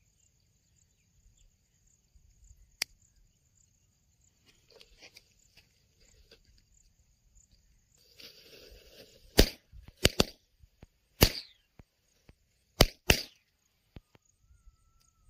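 Mirchi bomb firecrackers bursting inside a plastic pipe: a short hiss, then six sharp bangs over about four seconds, two of them nearly together.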